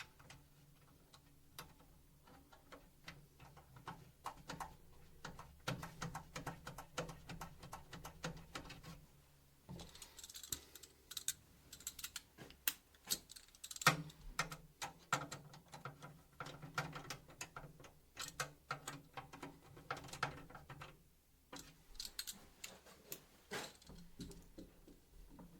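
Rapid, irregular clicks and taps, keyboard-like, with a low steady hum underneath from about four to twenty-one seconds in.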